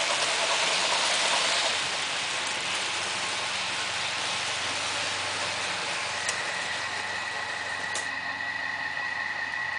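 Märklin model trains running on the layout's track: a steady running hiss and rumble, louder for the first couple of seconds, with a thin, high motor whine from about six seconds in and two short clicks.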